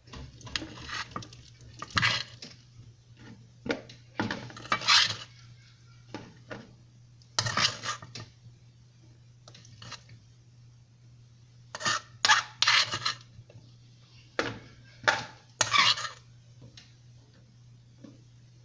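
Spoon scraping and clinking against a dish while scooping leftover macaroni, in irregular bouts of several seconds each.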